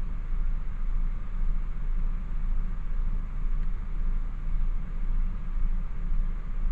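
Steady low drone inside the cab of a DAF XF truck, from its engine and running gear, even and unchanging throughout.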